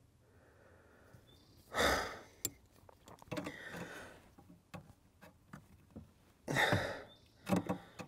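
A man sighing heavily twice in pain from a freshly pinched, blistering finger, with a shorter breath near the end. Small clicks and taps of pliers working on the clutch pedal's spring assist come in between.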